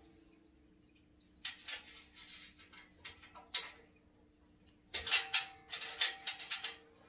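Scattered clicks and knocks of a plastic Shop-Vac handle and its screws being handled and lined up against the tank, in short clusters about a second and a half in, around three and a half seconds, and again from about five seconds in. A faint steady hum runs underneath.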